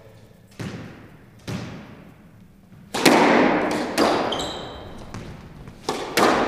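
Squash ball and rackets in a rally: two softer knocks, then sharp racket strikes and ball hits off the walls that echo around the court, the loudest about three seconds in. Several more strikes follow in quick succession near the end, with brief shoe squeaks on the hardwood floor in between.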